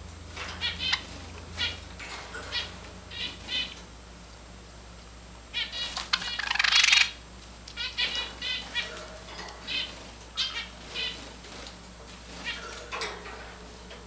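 Java sparrows giving short chipping calls, singly and in quick clusters. About halfway through comes a louder rustling burst lasting about a second.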